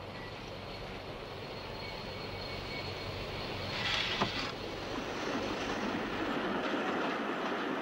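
Railway train running, its rumbling noise slowly growing louder. A brief hiss and a sharp click come about four seconds in.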